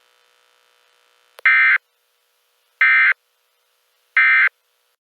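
Emergency Alert System end-of-message signal: three identical short bursts of SAME digital data tones, each well under half a second, about a second and a half apart, beginning about a second and a half in.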